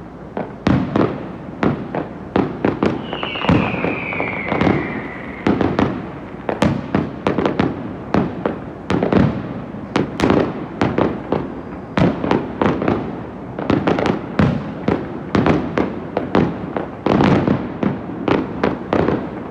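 Fireworks finale: aerial shells bursting in rapid, overlapping succession, several loud bangs a second with echoing rumbles. About three seconds in, a whistle falls in pitch for about two seconds.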